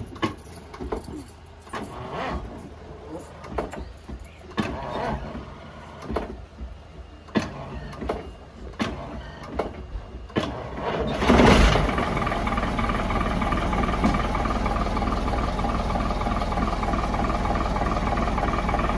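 Rear-mounted diesel engine of an MCW Metrobus double-decker: after about ten seconds of scattered knocks and clunks, it catches with a loud burst about eleven seconds in on its newly replaced starter motor, then settles into a steady idle.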